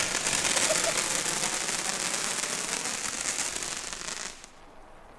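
Jet-flame torch lighter hissing steadily while held to firecracker fuses, cutting off about four seconds in.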